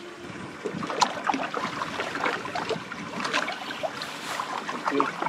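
Small waves slapping and splashing against the hull of a bass boat: a continuous run of irregular little splashes and knocks.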